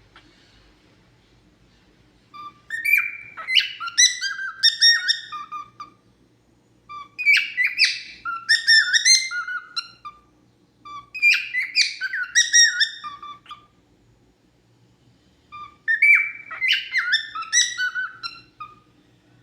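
Cockatiel singing: four whistled phrases of about three seconds each, made of rising and falling notes, with short pauses between them.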